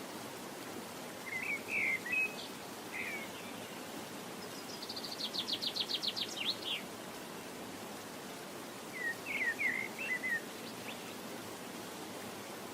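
Songbird calling: a few short chirps, then a quick trill of about a dozen rapid notes, then another cluster of chirps near the end, over a steady background hiss.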